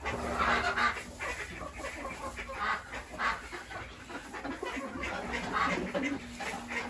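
Chickens clucking and calling in a farmyard: many short clucks scattered throughout.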